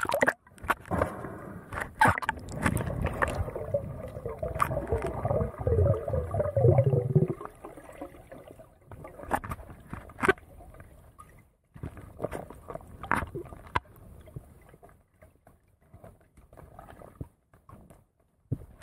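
Water sloshing and gurgling around a camera at the sea surface and under it, with a burble of quick wavering bubbling noises. About seven seconds in this gives way to a quieter underwater background with scattered sharp clicks and taps.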